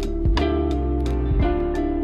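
Background music: an instrumental stretch of a pop song with guitar, bass and a steady drum beat.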